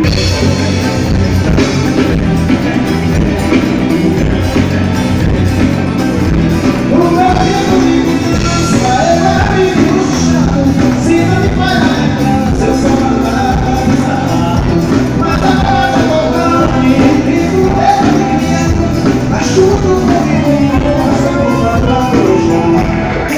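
Live forró band playing loud amplified music, with zabumba, drum kit and electric guitar under a singer's voice.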